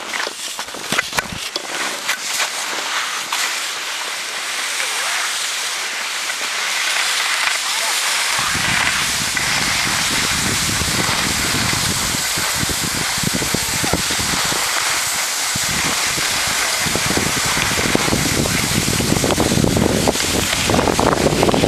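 Steady hiss of wind and skis sliding on snow. From about eight seconds in, a low rumble of wind buffeting the microphone joins and stays.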